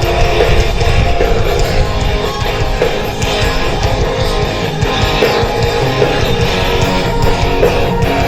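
Live rock band playing, with strummed electric guitar over drums.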